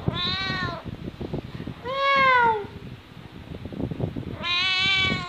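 Domestic cat meowing three times, about two seconds apart. Each meow rises and then falls in pitch.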